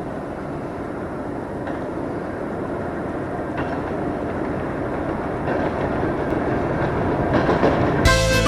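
Train running on rails, a steady rumbling clatter of wheels that grows gradually louder. Instrumental music starts abruptly near the end.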